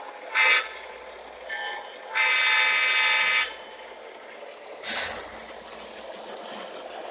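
O gauge model diesel locomotive's electronic horn sounding through its onboard speaker: a loud short toot, a fainter short toot, then a long blast of over a second. A brief rush of noise follows near the end.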